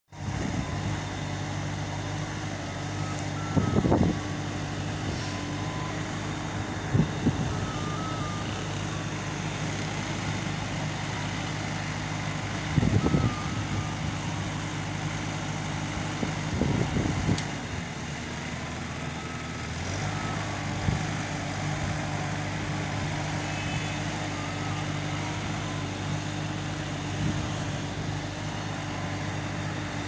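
Strong wind blowing through trees, with several louder gusts buffeting the microphone. Under it runs a steady low mechanical hum.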